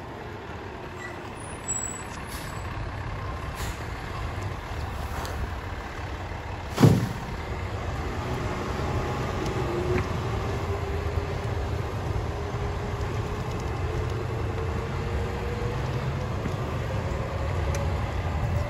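Mack Granite garbage truck's diesel engine running as the truck moves slowly along the street, with a faint tone that rises slowly through the second half. A single sharp, loud bang about seven seconds in.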